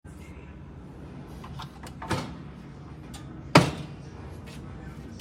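A few light clicks and two sharp knocks, like a door or lid being handled; the second knock, about three and a half seconds in, is the loudest.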